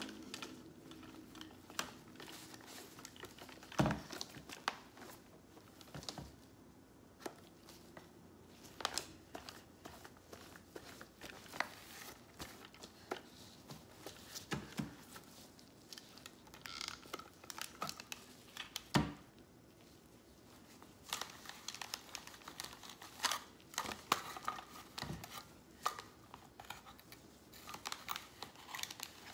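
A cloth wiping and rubbing over a Pyle megaphone's plastic shell, rustling and crinkling, with scattered taps and knocks as the megaphone is handled and turned. Two louder knocks come about four seconds in and near the middle.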